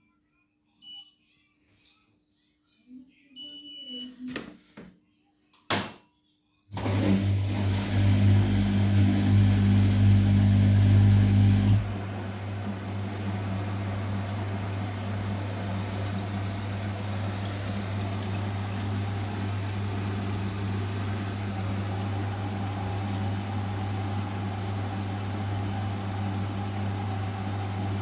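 Vestel CMI 97302 washing machine starting a 70 °C cotton wash: a few clicks and two short beeps from the controls, then about seven seconds in a steady low hum with a rushing sound sets in. The hum is louder for its first five seconds or so, then runs on evenly.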